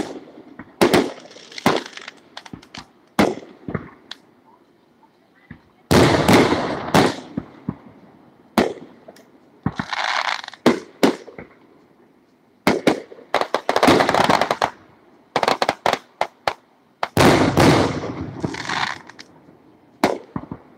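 Aerial fireworks shells bursting: sharp bangs and a few heavier booms that roll on for about a second, with quick strings of crackling reports in the middle stretch.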